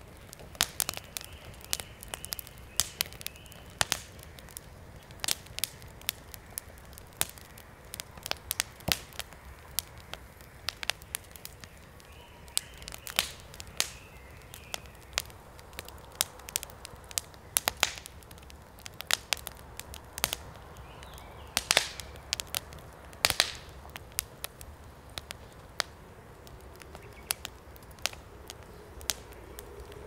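Wood fire crackling in a fire pit, with frequent sharp, irregular pops. Faint animal calls come in now and then behind it.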